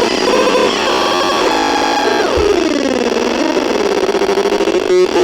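Electronic sound effects: several pitched tones glide and warble at once, with a long falling sweep about two seconds in. A steadier tone holds in the second half, broken briefly near the end.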